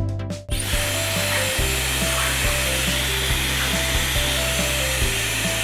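Handheld hair dryer blowing steadily as a bathed dog is dried, coming on about half a second in. Background music with a steady beat plays underneath throughout.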